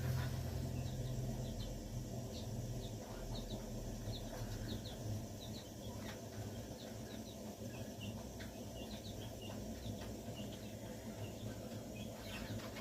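Chicken chicks peeping: many short, high chirps scattered throughout, over a low steady hum.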